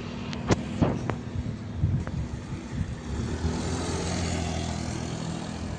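A motor's steady low drone, with a few sharp clicks about half a second to a second in and a dull thump near two seconds.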